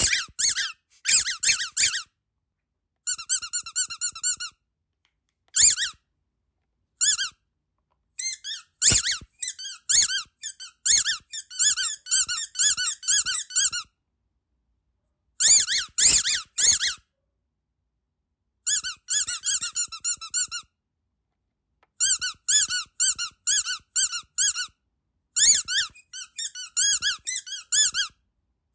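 Rubber duck squeaky dog toy squeezed over and over, giving high-pitched squeaks in quick runs, with short silent pauses between the runs.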